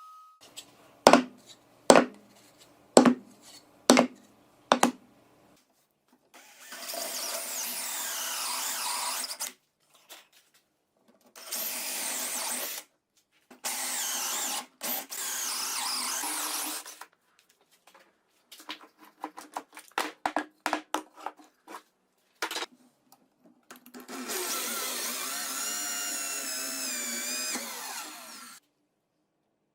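Workshop tool sounds: five sharp hammer-like strikes about a second apart, then a power tool running in several separate stretches, its pitch rising and falling under load, with a burst of quick taps between them.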